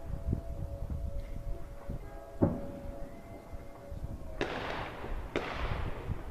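Fireworks going off: a sharp bang about two and a half seconds in, then two louder bursts a second apart near the end, each trailing off in a long hiss.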